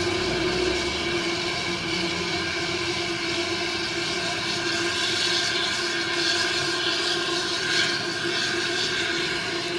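Liquid nitrogen being filled through a hose into a dewar: a steady hissing rush as it boils off into vapour, over a constant machine hum with a steady tone.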